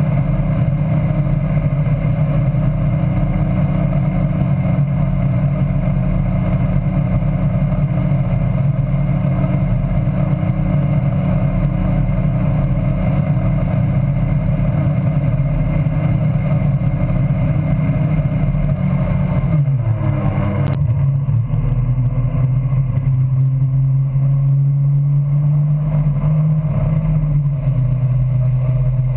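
Tow boat's engine running steadily at barefooting speed, with the rush of spray and wind over it. About two-thirds of the way through, the engine note drops and settles at a lower pitch, and the hiss thins out.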